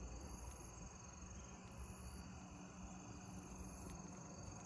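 Faint insects chirring: a steady high trill, with a higher buzzing pulse that switches on and off about once a second.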